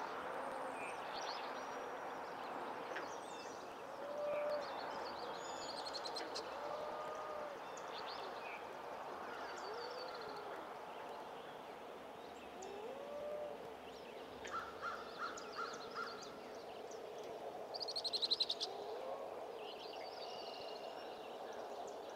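Several wild birds singing and calling at once, short high songs overlapping over a steady background hiss, with a lower rising-and-falling call repeating every few seconds. A run of quick, evenly spaced calls comes about two-thirds through, and the loudest sound is a rapid high trill shortly after.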